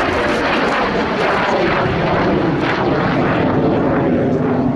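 Alpha Jet trainer's twin turbofan engines running as the jet climbs away overhead: a loud, steady jet rush. A tone inside it slides slowly lower in the second half.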